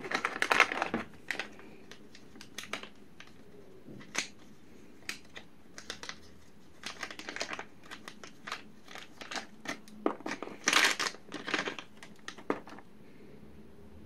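Clear plastic bag crinkling in irregular spells as a bagged USB charging cable is handled and unwrapped. It is loudest in the first second and again about eleven seconds in.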